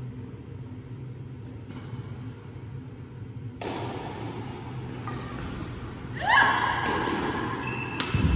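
Badminton rally: sharp racket strikes on the shuttlecock start a few seconds in, mixed with shoes squeaking on the sports floor, echoing in a large hall. The loudest moment is a squeak past the middle.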